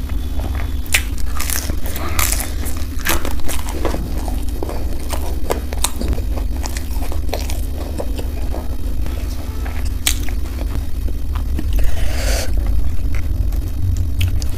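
Close-up mouth sounds of chewing crisp fried food: repeated short crunches and wet chewing, with a longer rustling crunch about twelve seconds in. A steady low hum runs underneath.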